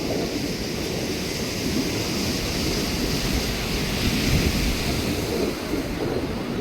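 Surf washing on the beach with wind buffeting the microphone: a steady, rushing rumble with no distinct events.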